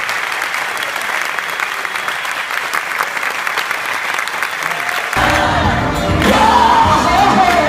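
Theatre audience applauding, a dense steady clapping. About five seconds in, it switches abruptly to a man singing into a microphone over loud amplified music, with the crowd still clapping.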